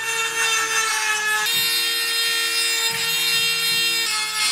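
Small handheld power grinder running at high speed against the steel welds of a sandblasted Honda CT70 frame, grinding the rough weld beads down. A steady high whine over a gritty hiss, its pitch shifting abruptly about a second and a half in and again near the end.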